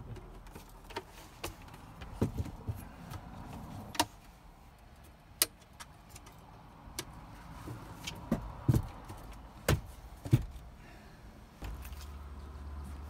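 Folding aluminium table being unfolded and set up: a string of sharp metallic clicks and knocks as the hinged top opens and the legs swing out and lock, loudest around the middle.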